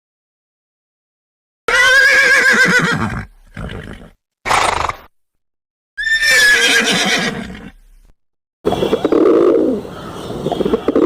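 A horse whinnying twice, each a loud, wavering call about a second and a half long, with a short snort-like sound between them. Near the end a different, lower animal sound takes over.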